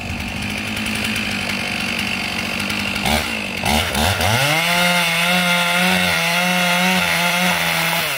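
Two-stroke chainsaw cutting through a thick ash trunk. About three seconds in it dips, then revs up to a steady high pitch under load, and the revs fall away right at the end.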